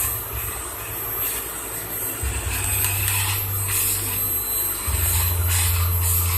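Household vacuum cleaner running steadily with a high whine, its low drone shifting in strength a couple of times.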